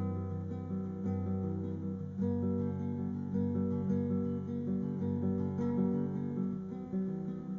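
Acoustic guitar music: strummed chords over a bass line, the chord changing about once a second.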